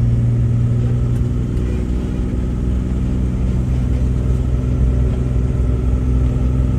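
Truck engine running steadily while driving, a low drone whose note dips slightly about two seconds in and then holds.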